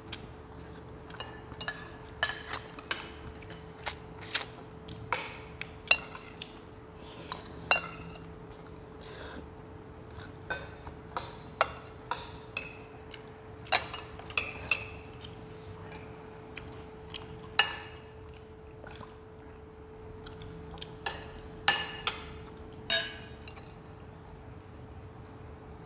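Metal spoons and chopsticks clinking against ceramic bowls and plates as people eat, in sharp irregular clinks, some a few in quick succession and others spaced out. A faint steady hum runs underneath.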